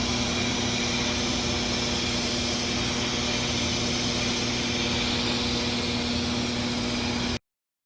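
Arc welding on a pipe joint in the 6G position: a steady frying hiss of the arc over a constant machine hum. It cuts off suddenly near the end.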